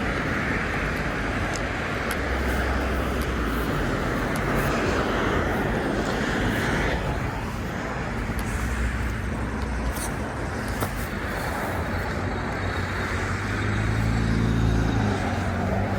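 Cars passing on a rain-wet street: a steady tyre hiss that fades away about seven seconds in, with a low engine hum returning near the end as another vehicle approaches.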